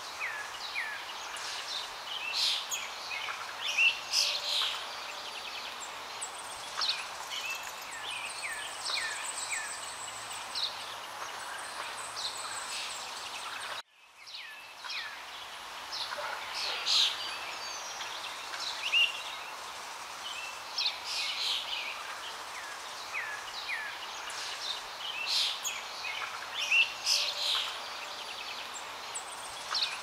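Birds chirping and singing in many short, high calls over a steady background hiss. The sound cuts out abruptly about halfway through and fades back in, as a looped ambience track restarts.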